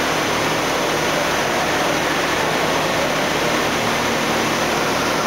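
A 60-inch Campbell vertical CNC grinder running, its wheel grinding a workpiece on the table under a spray of coolant: a loud, steady noise with no breaks.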